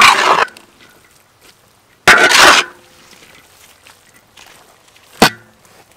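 Metal spatula scraping across a wok while stir-frying rice: two loud half-second scrapes about two seconds apart, then one short sharp clank of metal on metal about five seconds in.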